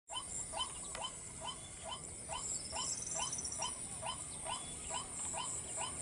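An animal call, a short rising note, repeated steadily about twice a second, over a steady high-pitched drone. A brief rapid high trill comes in around the middle.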